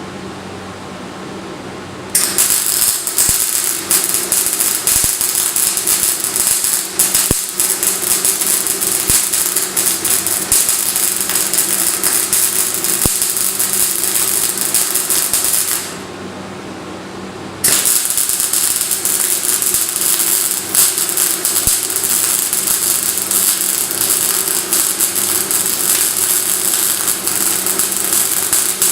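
MIG welding arc crackling steadily through two weld runs: the first starts about two seconds in, and after a short break of under two seconds the second runs on to the end. A steady low hum lies underneath.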